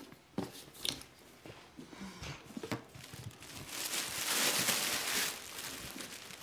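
A gift box being opened by hand: a few faint clicks and ribbon sounds, then paper and fabric rustling for about a second and a half, starting about four seconds in, as the present is lifted out.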